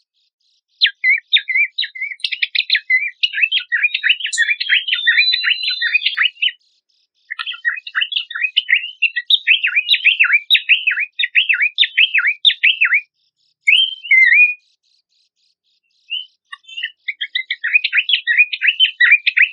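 Songbird song from a birdsong training track: long bursts of fast, jumbled chattering and twittering notes, broken by short pauses, with a brief two-note call in the middle and a final burst starting near the end.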